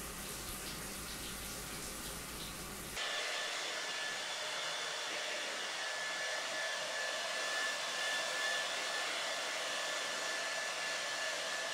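A steady rushing noise for about three seconds, then an abrupt change to two hair dryers blowing steadily, louder, with a thin high whine running through the air noise.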